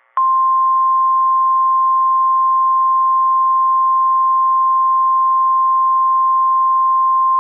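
NOAA Weather Radio's 1050 Hz warning alarm tone: one loud, steady, unwavering tone that switches on sharply just after the start and holds, over a faint radio hiss. It signals that a weather warning, here a severe thunderstorm warning, is about to be read.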